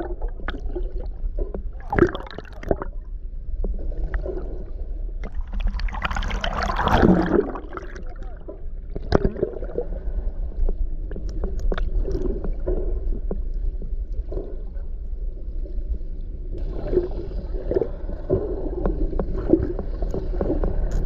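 Muffled underwater water noise heard through a submerged camera: gurgling, rushing water over a steady low rumble, with scattered clicks and a brief louder surge about six seconds in.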